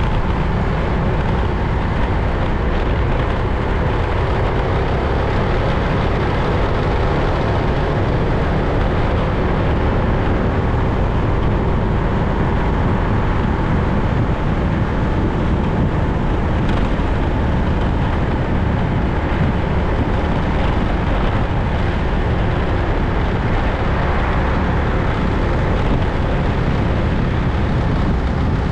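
Steady wind rush and road noise from a vehicle moving along a street, strongest in the low rumble, with a faint steady engine tone underneath.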